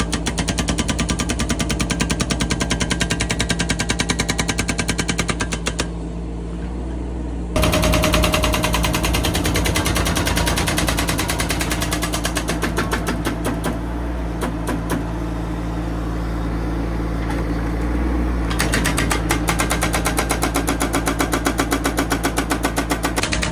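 Hydraulic breaker on a 2-ton mini excavator hammering rock in rapid, even blows over the steady run of the excavator's engine. The hammering stops briefly about six seconds in, then starts again, and is weaker for a stretch in the middle before picking up.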